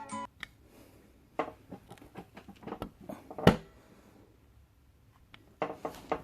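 Scattered light clicks and taps of metal parts and tools being handled while valve springs and keepers are fitted to a cylinder head, with one sharper knock about three and a half seconds in.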